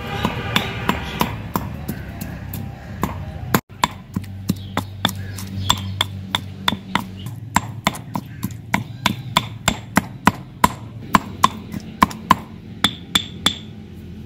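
Stone pestle pounding in a white stone mortar, crushing raw mango and onion into a coarse chutney: steady, regular knocks about three a second, with a brief drop-out about four seconds in.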